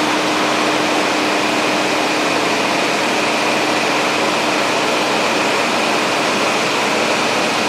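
Steady whooshing hiss of cooling machinery, with a low hum that drops away about halfway through and a thin high whine.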